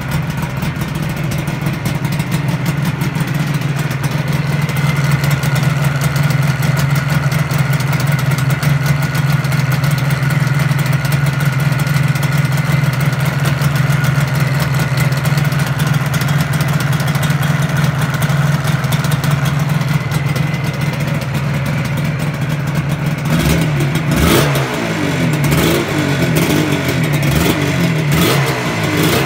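Yamaha RD350 YPVS two-stroke parallel-twin engine, freshly rebuilt, running at a steady idle. It is revved up and down a few times in the last five seconds.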